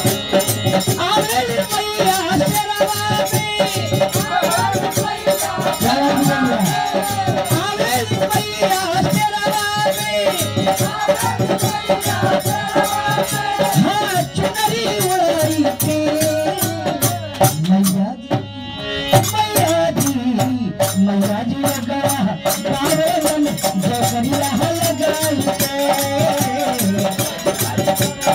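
Live devotional bhajan: voices singing over steady sustained instrumental tones, with shaken rattles and hand percussion keeping a quick, even rhythm. The music dips briefly about two-thirds of the way through.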